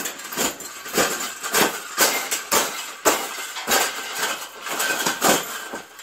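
A round wire birdcage being stomped flat underfoot: a quick run of metal crunches and rattles, about two or three stomps a second.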